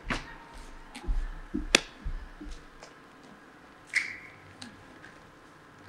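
A few sharp knocks and clinks of cookware and utensils being handled on the demo table, with some dull thuds in between; the clink about four seconds in rings briefly.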